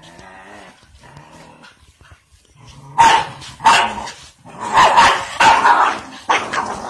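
A dog growls low, then from about three seconds in barks loudly, a quick run of sharp barks as it goes for a rooster.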